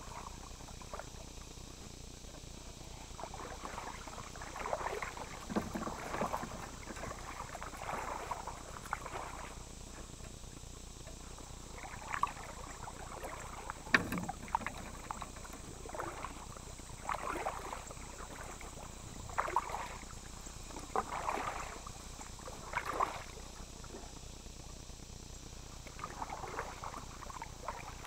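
Kayak paddle strokes: the blades dip and swish through the water in a loose rhythm, about one stroke every second or two, with a couple of short pauses. About halfway through there is one sharp knock.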